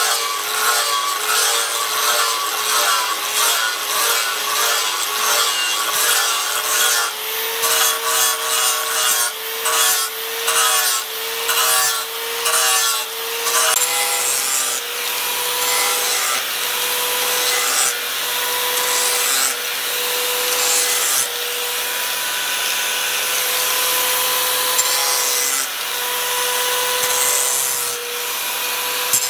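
Repeated rasping strokes of a hand tool working the knife or its handle, about two a second, turning into a more continuous scraping about halfway through. A steady whine runs underneath throughout.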